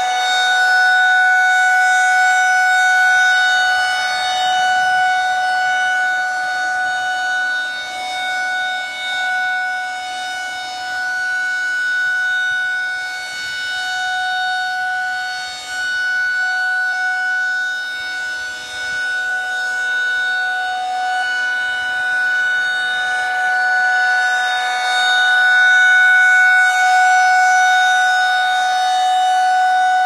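Federal Signal 2001 electromechanical outdoor warning siren sounding a steady, single-pitch alert tone at full speed during a monthly test. The horn rotates, so the tone swells and fades slowly as it turns toward and away from the listener: it is quieter in the middle stretch and loudest near the end.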